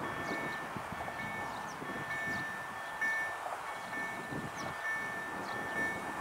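Level-crossing warning signal ringing: a two-tone electronic chime repeating steadily over a rushing background.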